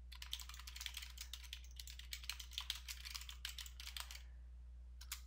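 Computer keyboard being typed on: a fast, faint run of keystroke clicks that stops about four seconds in, with one more keystroke near the end.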